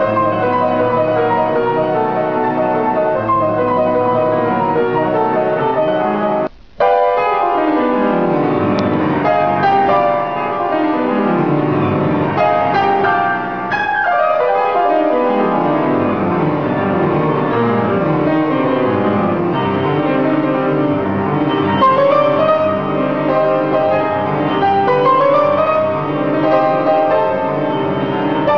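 Solo piano music, a piece by a piano student, with two falling runs down into the bass and rising phrases near the end. The sound cuts out for a split second about seven seconds in.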